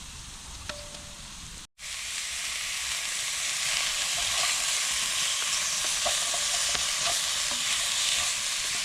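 Diced beef and onions sizzling as they fry in a cast-iron pot over a campfire, a loud steady hiss with small crackles that comes in abruptly about two seconds in.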